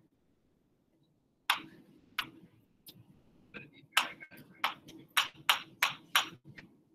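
Writing on a board by hand: the writing tip taps and strokes against the surface as a radical sign and '11x' are written, a few sharp ticks at first and then a quicker run of about three a second.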